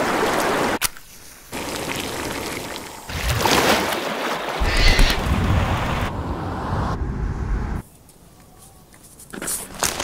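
A string of short outdoor sound cuts: rushing, splashing creek water over rocks, then a heavy low wind rumble on a microphone held out of a moving car's open window, which cuts off suddenly near the end.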